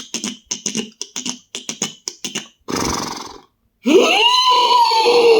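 Beatboxer imitating a galloping horse with his mouth: quick rhythmic tongue clicks for the hoofbeats, then a short snort and a long vocal neigh that rises and then falls.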